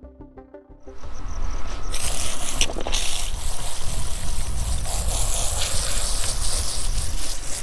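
Music ends in about the first second, then a steady rushing of water and wind noise with a low rumble.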